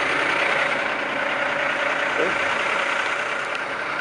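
A heavy truck's engine idling steadily.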